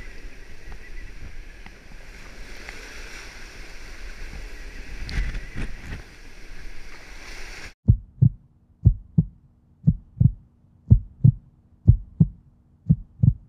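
Wind and water noise on a sailboat in storm winds, with a few knocks. About eight seconds in it cuts off suddenly and a heartbeat-like double thump takes over, repeating about once a second over a faint low hum.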